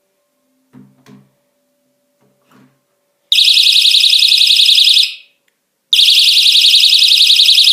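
A magnetic reed-switch door alarm shrieking with a loud, shrill, rapidly warbling siren, set off as the door opens and the magnet moves away from the switch. It comes on abruptly about three seconds in, stops briefly for about a second, then starts again. Before it there are a few faint knocks.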